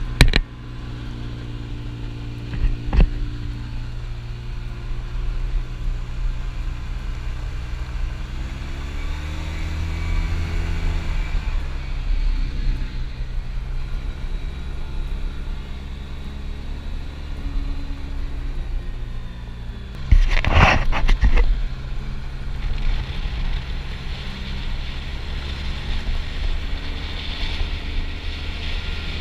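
Polaris RZR side-by-side's engine running as it drives, its pitch rising and falling with the throttle. A few sharp knocks cut through, the loudest cluster about twenty seconds in.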